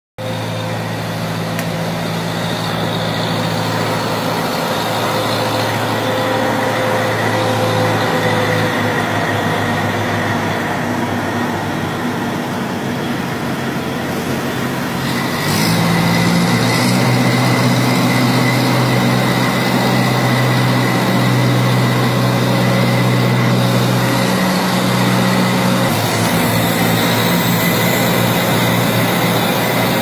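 Diesel engine of a hydraulic construction machine running steadily, heard from inside its cab. About halfway in the engine note steps up louder and higher, and it changes again a few seconds before the end.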